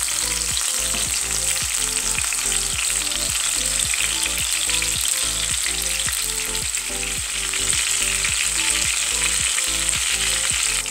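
Chicken breasts sizzling steadily as they fry in olive oil in a non-stick frying pan over medium heat.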